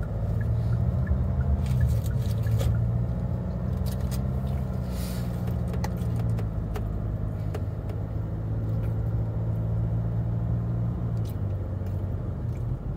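Car engine and road noise heard from inside the cabin while driving: a steady low drone, with a few faint clicks.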